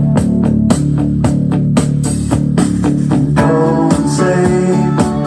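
A guitar-based song with bass guitar and a steady beat playing loudly through a portable Bluetooth speaker.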